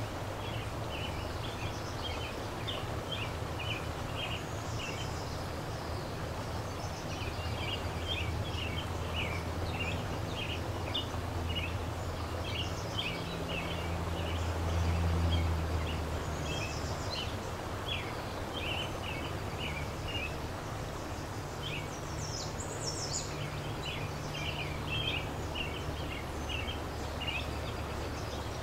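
A river flowing steadily over a low rumble that swells about halfway through, while small birds sing in quick runs of short chirps, with one higher call late on.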